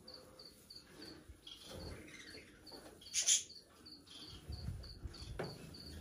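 A cricket chirping steadily, about three high chirps a second, with faint rustling of a coconut-fibre nest being handled and one brief louder rustle about three seconds in.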